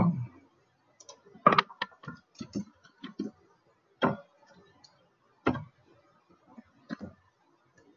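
Computer keyboard keystrokes as code is typed: a dozen or so separate clicks at irregular, unhurried intervals.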